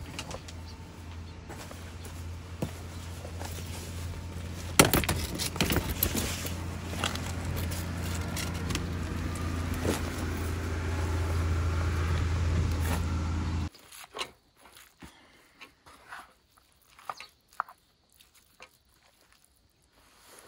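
A steady low mechanical hum, like a running vehicle, with scattered clicks and rattles, growing louder and then cutting off abruptly about two-thirds of the way through. After that there are only faint, scattered clicks and taps.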